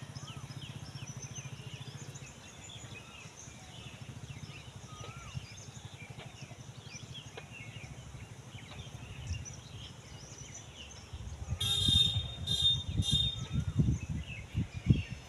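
Motorcycle engine running and fading as the bike moves off along the path, with birds chirping over it. Near the end come three short high-pitched beeps and several low thumps.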